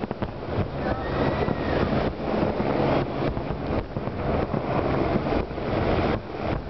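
Large fireworks display: a dense, continuous barrage of aerial firework shells bursting, many booms and cracks a second over a steady low rumble.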